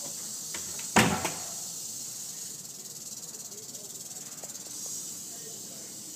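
Rattlesnake rattling its tail in a steady, high buzz. One sharp knock about a second in.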